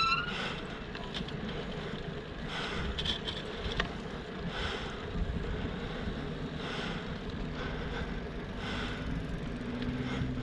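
Heavy out-of-breath panting from a cyclist who has been pedalling hard, one deep breath about every two seconds, over a steady wind rumble on the microphone.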